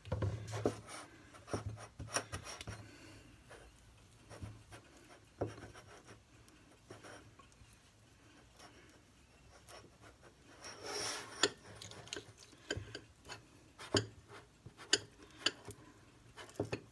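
Wooden craft stick and fingers scraping and tapping against a small glass bowl while mixing cornstarch and hair conditioner into a stiff dough: scattered clicks and short scrapes, with a longer scraping rub about eleven seconds in.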